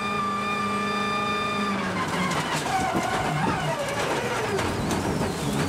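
Ford Focus RS WRC 07 rally car's turbocharged four-cylinder engine, heard from inside the car, held at a steady high pitch flat out. About two seconds in the steady note breaks off, and the engine pitch then falls and wanders back up as the car slows for a tight junction and pulls away.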